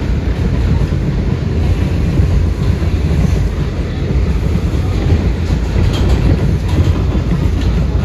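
New York City subway train running at speed on open track, heard from inside the car: a steady, loud rumble of wheels on the rails, with a few faint clicks in the later half.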